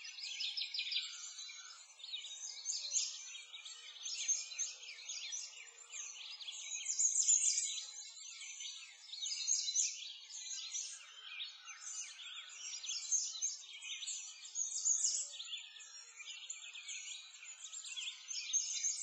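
A dense chorus of small songbirds chirping and twittering without a break, all high-pitched with nothing low beneath it.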